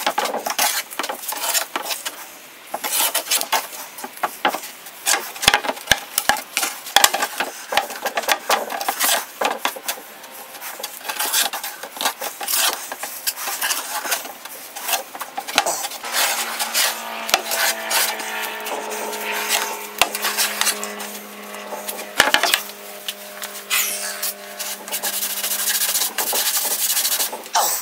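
A spreader scraping and smearing two-part epoxy fairing compound on a mixing board, in a quick, irregular run of scrapes, as the two parts are folded together.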